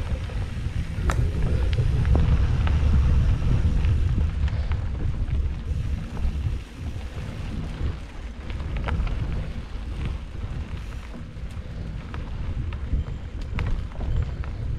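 Wind buffeting the microphone over the rumble of a mountain bike rolling along a dirt trail, with scattered clicks and rattles.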